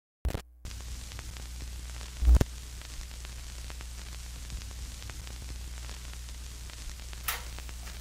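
Old-film soundtrack noise: a steady low hum under hiss and scattered crackles, with a loud pop a little over two seconds in and another crackle near the end.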